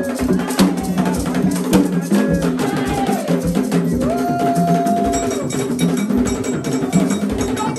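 Vodou ceremonial music: drums and percussion playing a steady, dense rhythm, with a voice singing that holds a long note about four seconds in.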